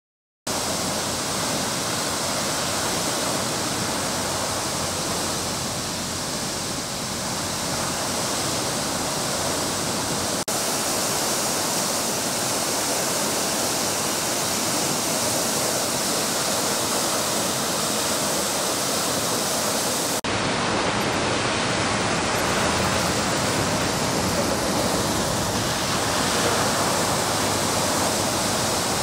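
Water from a fire hydrant sheared off by a vehicle, gushing uncontrolled about 30 feet into the air and crashing back onto the pavement as a loud, steady rush. It starts about half a second in.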